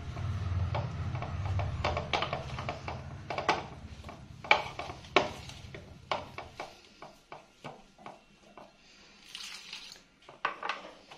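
A spoon scraping and clicking against a plate while stirring gram flour and spices into a stiff pakora batter, in irregular strokes. A low hum runs underneath and cuts off about two-thirds of the way through.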